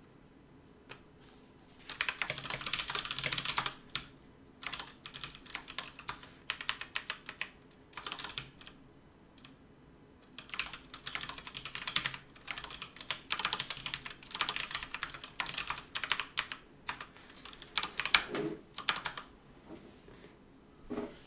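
Fast typing on a computer keyboard in bursts of rapid keystrokes with short pauses, starting about two seconds in.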